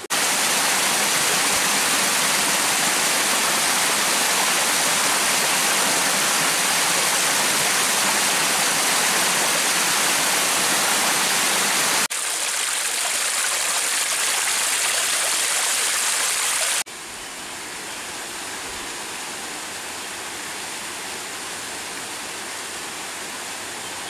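Spring-fed water pouring and splashing over rocks in a small cascade, a steady rush of water. The sound changes abruptly about halfway through, and again a few seconds later, when it becomes quieter.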